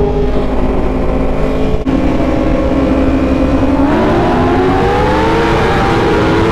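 Yamaha R1M's crossplane inline-four engine running at speed, heard from on board under wind rush. It holds a steady note, breaks off briefly about two seconds in, then climbs steadily in pitch from about four seconds in as the bike accelerates.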